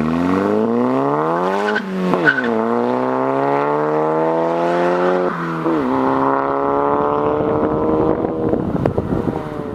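Volkswagen MK7 GTI's turbocharged 2.0-litre four-cylinder running through a center-exit cat-back exhaust under hard acceleration: the revs climb, fall with an upshift about two seconds in, climb again, fall with a second upshift about five seconds in, then climb once more.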